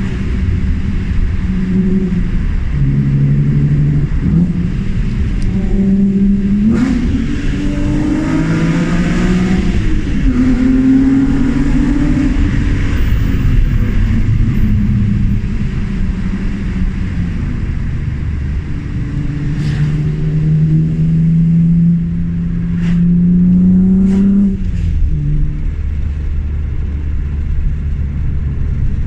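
BMW E36 M3's straight-six engine accelerating and shifting: its note climbs with the revs and drops back at each change, with a long pull about twenty seconds in that falls away suddenly, then settles into a low steady drone near the end. A few short sharp clicks are mixed in.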